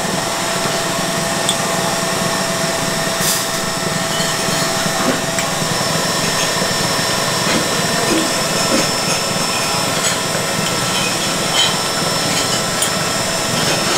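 Steady whir of a small electric motor, with a thin high whine over it and a few faint clicks.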